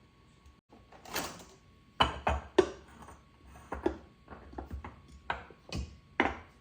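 Objects being handled and set down: a brief rustle about a second in, then a run of separate sharp knocks and clicks, the loudest near two seconds in and near the end.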